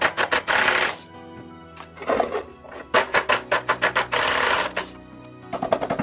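Cordless impact driver hammering in several short bursts of rapid clatter, loosening the screws on a front-loading washing machine's drum, over background music.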